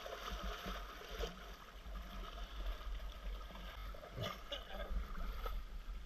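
Rushing river water around an inflatable raft, with wind rumbling on the microphone and a few short knocks or splashes.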